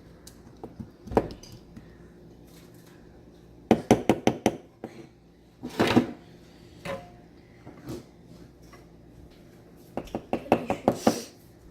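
Kitchen utensil clinking against a container of chopped onion, garlic and honey in short quick runs of clicks: a single click about a second in, a fast run around four seconds, a longer rattle near six seconds, and another fast run near the end.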